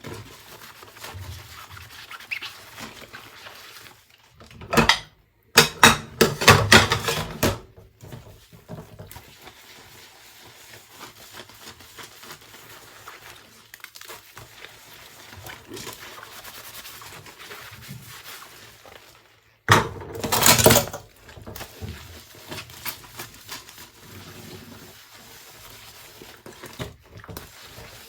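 Dishes being washed by hand: plates, pots and cutlery knocking and clinking, with two louder, noisier stretches, one about five to seven seconds in and one about twenty seconds in.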